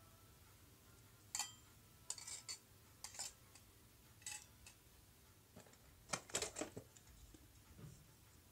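Miniature stainless steel toy pots, pans and utensils clinking against each other as they are picked up and set down: a scattered series of light metal clinks, with a quick cluster of them about six seconds in.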